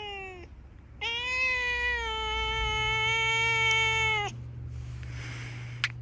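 Grey-and-white cat meowing as it is stroked: the falling tail of one call, then about a second in a long drawn-out meow held at a steady pitch for over three seconds. It is a complaint at being touched.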